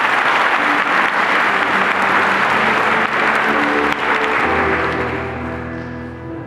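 Audience applauding, the clapping dying away about five seconds in, while a keyboard begins an accompaniment of held notes underneath.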